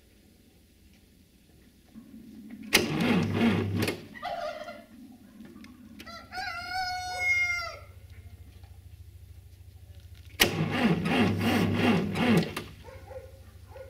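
Massey Ferguson 35 tractor's cold, frost-covered diesel engine, heard in two loud bursts of cranking and firing, about three seconds in and again about ten seconds in. Between and after the bursts it runs with a low, even idle. A rooster crows once, about six seconds in.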